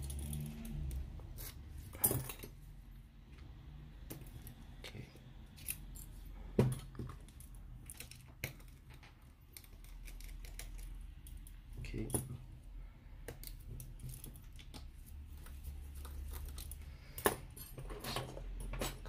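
Small metallic clicks and taps of a precision screwdriver working the tiny screws out of an iPhone 6's internal brackets, with a few sharper clicks standing out over a low steady hum.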